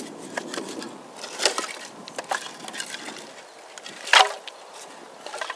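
Wood cracking and snapping in irregular sharp cracks, the loudest about a second and a half in and again about four seconds in, with smaller ticks between.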